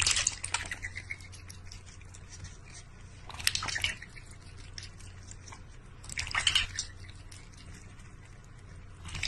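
Water splashing and dripping in a large stainless steel bowl as a duck dips its bill in and a cat laps from it, with small drips and ticks throughout. Three louder splashes come about three seconds apart: at the start, in the middle and past halfway.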